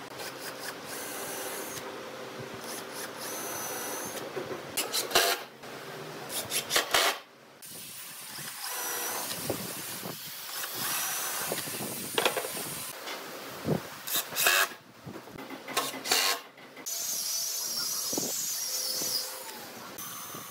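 Woodworking tools working wood in a series of short clips that change abruptly: rubbing and scraping strokes, several sharp knocks, and near the end a steady high wavering whine of a running tool.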